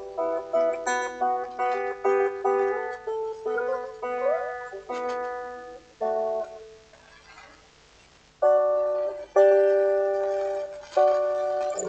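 Solo guitar improvising: a run of picked notes, a few of them sliding up in pitch about four seconds in. The notes die away to a brief hush, then three ringing chords are struck about a second apart.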